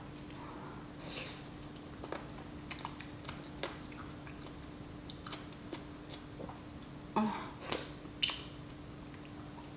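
Close-miked eating of spicy rice cakes and noodles: chewing with small wet mouth clicks, then a louder slurp of noodles from a bowl held to the mouth, starting suddenly about seven seconds in and fading over about half a second, with a sharp click just after. A faint steady hum lies underneath.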